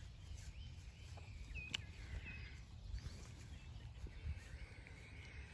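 Small birds chirping in short high calls over a low rumble of wind on the microphone, with one sharp click a little under two seconds in.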